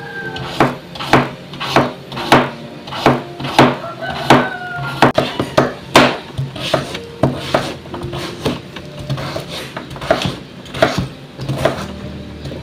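Chef's knife chopping green papaya into cubes on a wooden cutting board: a steady run of sharp knocks about one and a half to two a second, over faint background music.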